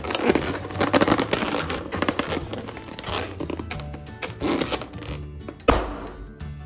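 A latex balloon rubbing and squeaking as it is handled, then bursting with one sharp pop about five and a half seconds in.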